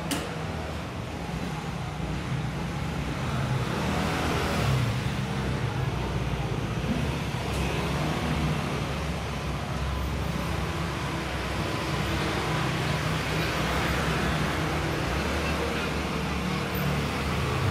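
Steady street traffic noise: a constant low rumble of passing vehicles with a general outdoor hum.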